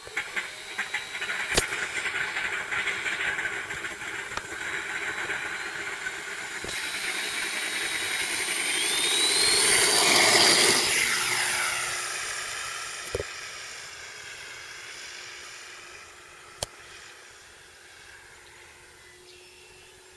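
Cessna 182 RC model airplane flying past: its motor-and-propeller whine grows louder and rises in pitch as it approaches, is loudest about ten seconds in, then drops in pitch and fades as it flies away. A few sharp clicks sound along the way.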